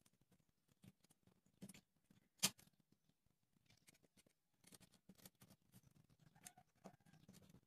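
Utility knife blade cutting and scraping a thin bamboo stick on a wooden board: faint, scattered scratchy clicks, with one sharp, much louder click about two and a half seconds in.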